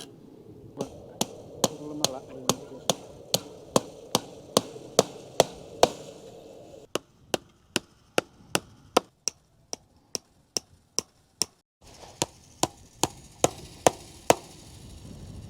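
A hammer striking repeatedly in a steady rhythm, about two to three blows a second, with a short break near the end: fence-building work on a barbed-wire fence.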